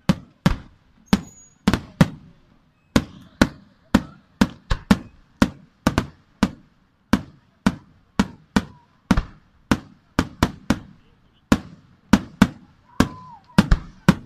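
Chiarappa Fireworks aerial shells bursting in rapid, uneven succession, about two sharp bangs a second, each with a short echoing tail.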